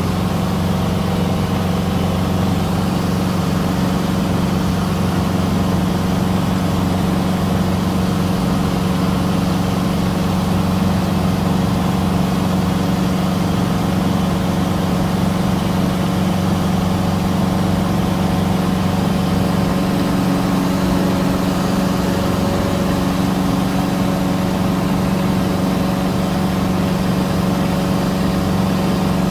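Cessna 150's four-cylinder Continental O-200 engine and propeller in cruise flight, heard inside the cockpit as a loud, steady, unchanging drone.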